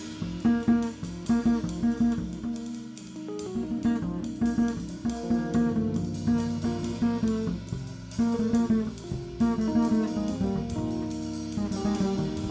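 Small jazz group playing: double bass plucked in a busy run of short notes, with electric piano and drum kit.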